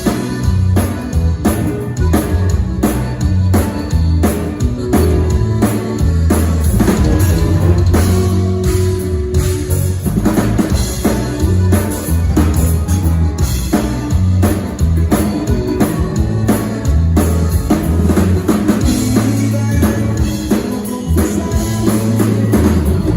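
A live rock band playing an instrumental passage: drum kit with steady kick and snare hits, bass guitar and electric guitar, with no singing.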